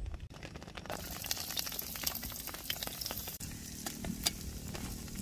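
Sliced onions sizzling in hot oil in a frying pan on a portable gas camp stove, the sizzle starting about a second in, with the scrape and tap of a wooden spoon stirring them.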